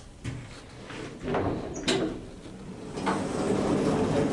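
Automatic lift car doors sliding open after the car stops at a floor, with a few sharp clicks along the way.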